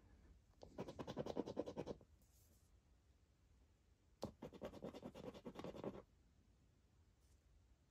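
A coin scratching the scratch-off panels of a Triple Cashword scratchcard. There are two bursts of quick rubbing strokes, one about a second in and another from about four to six seconds in. The second burst starts with a sharp click.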